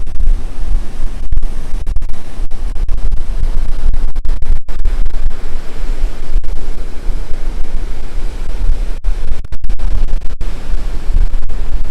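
Strong wind buffeting the microphone, a loud steady rumble, with ocean surf beneath it.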